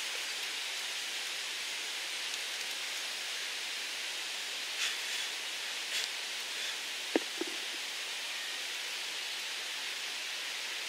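Steady even hiss of forest ambience, with a few faint clicks about five, six and seven seconds in as small porcini mushrooms are cut and handled with a knife.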